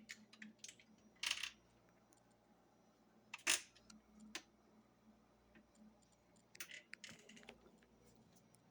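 Scattered short clicks and rustles of objects being handled, the loudest about three and a half seconds in, over a faint steady hum.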